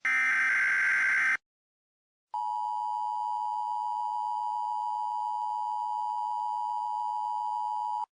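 Emergency Alert System tones. The last of the three SAME header data bursts is a harsh buzzing warble lasting about a second and a half. After a second's pause the EAS attention signal follows, a steady dual-tone alarm held for nearly six seconds, which cuts off abruptly just before the voice message.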